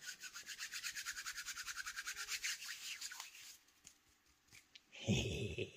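Fast back-and-forth rubbing on a small part, about ten strokes a second for about three and a half seconds, then it stops. A brief low voice sound near the end.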